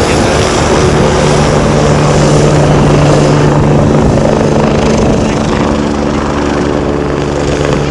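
Rescue helicopter flying past, a steady rotor and engine sound with a constant low hum that eases a little after about five seconds as it draws away.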